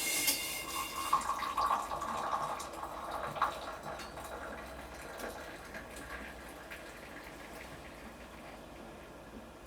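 Running water in a kitchen, strongest over the first few seconds and then fading away.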